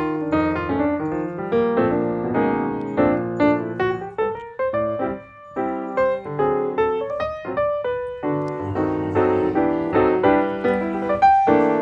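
Background piano music: a continuous run of separate notes and chords.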